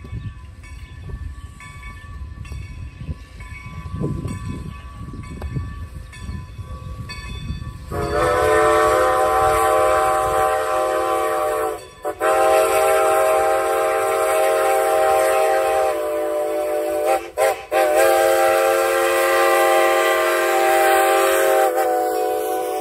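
Steam locomotive exhaust chuffing under a low rumble as the train approaches. After about eight seconds a loud chime steam whistle sounds long, long, short, long: the grade-crossing signal.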